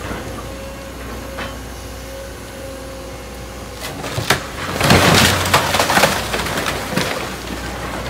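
Building demolition: wood and debris cracking, splintering and crashing down in a loud cluster about five seconds in, after a few sharp knocks, over the steady low hum of the demolition machinery.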